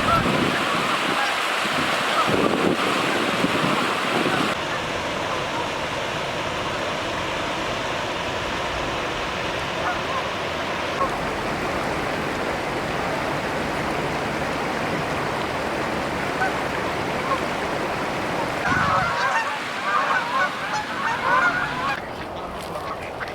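Steady rush of flowing river water, with waterfowl calling near the start and again near the end. The background noise changes abruptly a few times.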